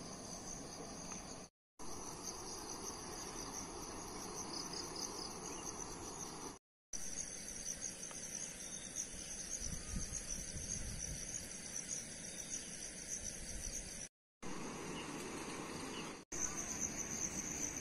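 Insects chirring steadily in tropical scrub and grass, a high pulsing buzz over a low rustle of ambient noise. It cuts out abruptly four times for a fraction of a second.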